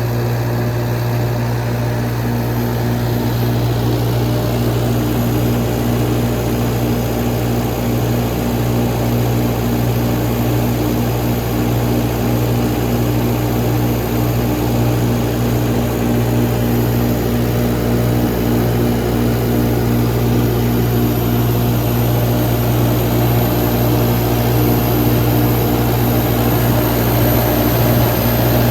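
35 kW Cummins/Onan diesel generator running at a constant speed: a steady engine drone with a strong low hum that does not change.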